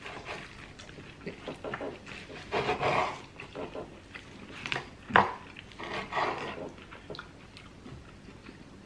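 Close-miked eating sounds: chewing and wet mouth noises over a lamb chop, with a sharp click about five seconds in.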